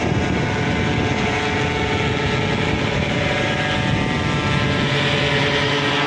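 Engine and propeller of a powered paraglider trike flying overhead, a steady drone.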